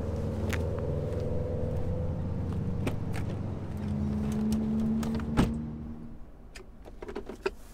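A vehicle engine idling with a steady hum, and a car door shutting with a single knock about five seconds in. After that it goes quieter, with a few light clicks near the end.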